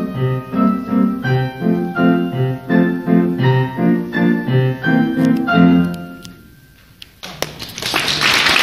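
Piano playing a steady run of notes and chords that dies away about six seconds in. After a short lull, a loud rushing noise with a few clicks takes over near the end.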